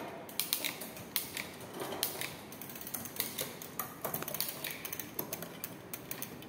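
Bicycle drivetrain with a 7-speed rear freewheel, clicking and rattling irregularly as the pedals are turned and the chain is shifted down the rear cogs toward first gear.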